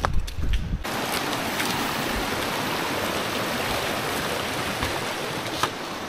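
A low rumble for the first second, then an abrupt start of a steady rush of flowing water.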